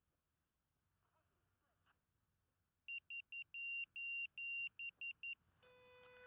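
Electronic beeps from a downed FPV quadcopter's lost-model beacon: loud, high and clean, in an SOS-like run of three short, three long and three short. A steady pitched tone begins near the end.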